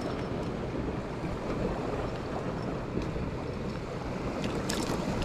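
Steady wash of sea surf and wind on the shore rocks, with wind buffeting the microphone. A few light clicks near the end.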